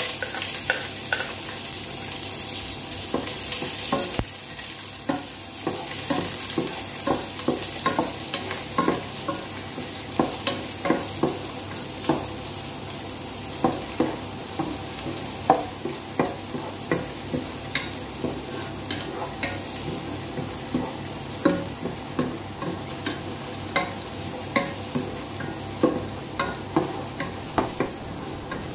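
Chopped onion sautéing in hot oil in a pot, sizzling, loudest in the first few seconds. A wooden spoon stirs it, knocking and scraping against the pot about once or twice a second.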